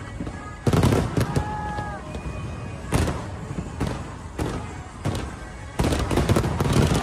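New Year fireworks bursting overhead. There is a quick cluster of bangs about a second in, single bangs at about three and four seconds, and a dense run of bangs near the end.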